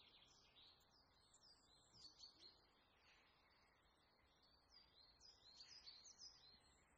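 Faint chirping of small birds: many short, quick falling chirps overlapping, in louder flurries about two seconds in and again near the end.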